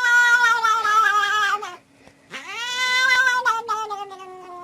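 A cat yowling in two long drawn-out calls. Each call sinks slowly in pitch, with a short gap between them.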